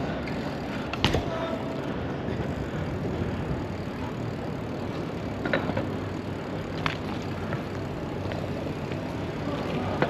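Electric bike being ridden at speed: a steady rush of tyre and wind noise, broken by several sharp knocks as the bike goes over bumps, the loudest about a second in.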